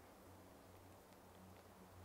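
Near silence: a faint steady hiss with a low hum and a few faint ticks.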